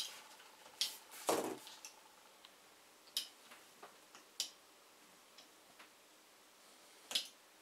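Irregular sharp clicks and knocks from hard plastic mount parts and a small metal screwdriver being handled on a table, about six in all, the loudest a duller knock about a second and a half in.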